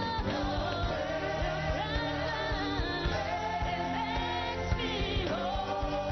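Church worship music: singing over a band with a steady beat.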